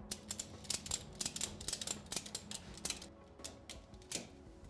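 Ratchet tie-down strap being cranked tight, its ratchet clicking in a quick, uneven run of sharp clicks that thins out in the last second or so.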